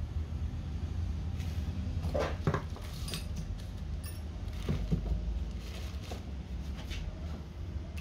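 Scattered clinks and knocks of tools and metal parts being handled, several in quick succession a couple of seconds in and again around the middle, over a steady low hum.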